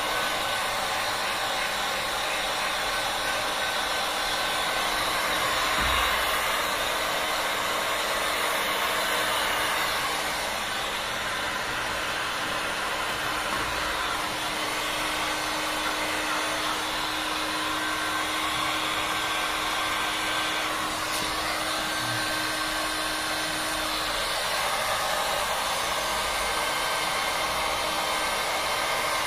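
Electric heat gun running steadily, its fan blowing hot air onto a heat-shrink tube to shrink it around a cable entry. A steady rush of air with a faint, even hum under it.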